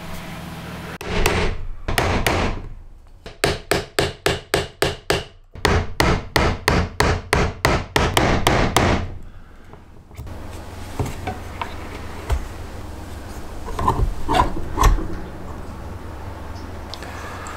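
Wood chisel struck by rapid hammer blows, chopping a slot into a softwood block: a few strikes, then two runs of about three or four strikes a second with a short pause between them. After that come only a few light knocks and handling sounds.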